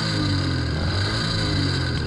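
Small engine running under way, its exhaust packed with steel wool as a makeshift muffler. The engine note is steady and loud, with small shifts in pitch.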